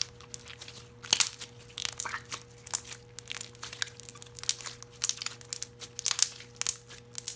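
Overactivated, stiffened purple glitter slime being kneaded and squeezed by hand, giving a stream of irregular sticky clicks and crackles as it stretches and pulls apart.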